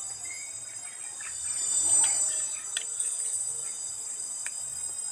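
Steady high-pitched chirring of insects, swelling about two seconds in, with a few sharp clicks over it.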